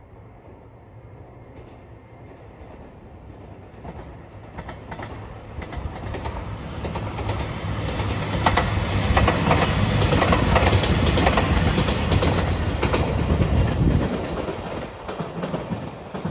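A JR Shikoku 2700 series diesel limited express passing at speed. Its engine hum and running noise build over several seconds, then a long run of rapid wheel clicks over the rail joints, fading away near the end.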